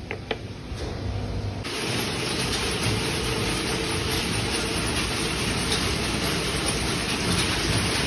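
Steady, dense machine noise of wire-winding machinery running, setting in abruptly about one and a half seconds in after a few light clicks.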